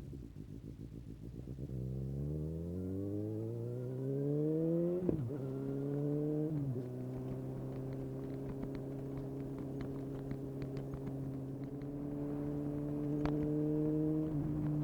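Suzuki GSX-S750's inline-four through a Yoshimura SQ11 exhaust with no dB killer and a decat, pulling up from low revs with two quick upshifts, about five and about seven seconds in, then running at a steady cruise. Light ticks come and go over the steady engine note during the cruise.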